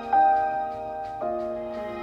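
Slow piano music from a TV drama's soundtrack, with a chord struck just after the start and another about a second in, each note left to ring.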